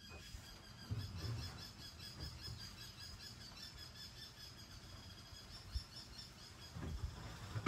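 Steady outdoor chirping in a garden: small high chirps repeated quickly and evenly, with a few dull low thumps and rustles close to the microphone.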